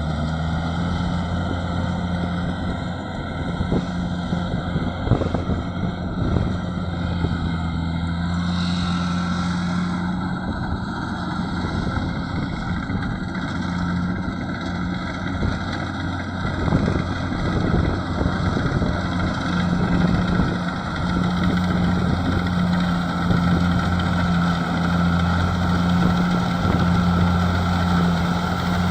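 Rice combine harvester running steadily under load, its engine humming evenly with a thin steady whine above it and a few light knocks.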